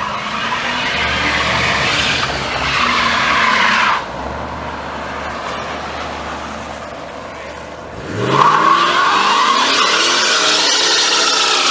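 Car engine and tyre noise that breaks off suddenly about four seconds in. About eight seconds in, a red Ford Mustang convertible's engine revs up and its rear tyres spin and squeal loudly in a smoky burnout.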